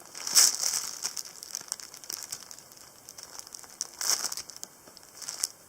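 Plastic packaging crinkling as a panda bun squishy is squeezed inside its bag: a loud crinkle at the start, scattered crackles, then another crinkle about four seconds in.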